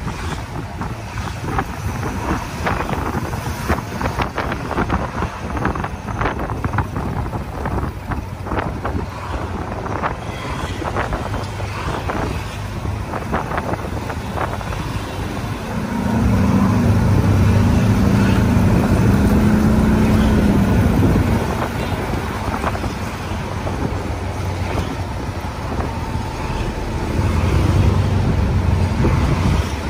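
Ride in an open tuk-tuk through street traffic: a steady engine and road rumble with frequent short rattles. An engine drone swells louder for about five seconds in the middle and again briefly near the end.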